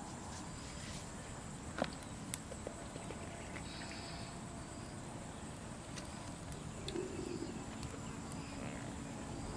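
Soft patting and rubbing of a raw whole red fish being pressed and turned in a metal tray of flour, with a few light taps about two seconds in. Underneath is a steady, faint high-pitched whine.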